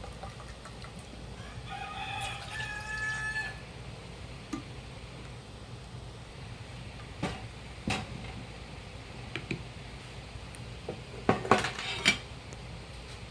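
A rooster crowing once, a single drawn-out call that rises in pitch at the end. Later come several sharp knocks or clacks, the loudest a quick cluster near the end.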